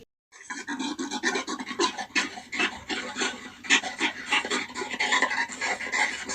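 Gorilla making a fast, raspy run of scratchy noises that starts just after a brief silence.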